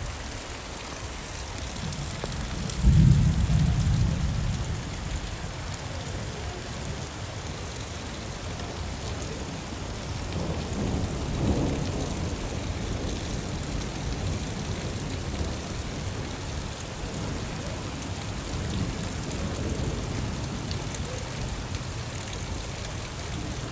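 Steady rain with thunder: a loud low rumble breaks in about three seconds in and fades over a couple of seconds, and a softer rumble comes around ten seconds in.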